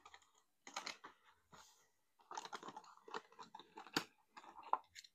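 Faint, scattered clicks and rustles of small die-cast toy cars being handled, with one sharper click about four seconds in.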